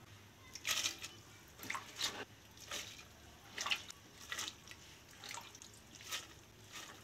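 Hands swishing and squeezing shredded cabbage in water in an aluminium pot to wash it: a string of short, soft splashes and wet rustles, every half second or so.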